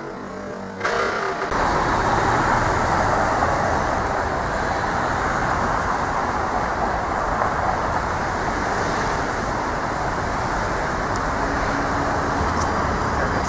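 Steady road traffic noise of passing cars, cutting in abruptly about a second in.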